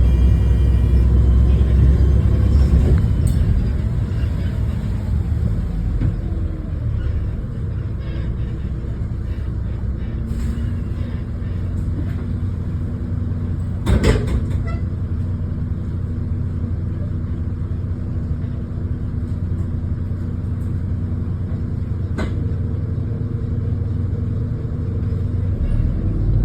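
Diesel bus engine running, heard from on board, louder for the first few seconds and then settling to a lower steady drone. A sharp knock comes about halfway through, and a lighter one near the end.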